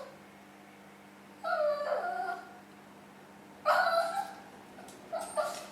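Shih Tzu giving three short, whining, yowly calls with bending pitch, half-formed attempts at a bark that don't come out as a proper woof.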